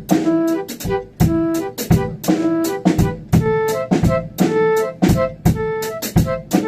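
Live band rehearsal: a keyboard plays a melody of short held notes over a steady drum kit beat, with drum hits several times a second.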